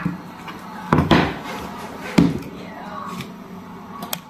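Kitchen knife cutting an onion on a chopping board: a couple of sharp knocks, about a second in and again about two seconds in.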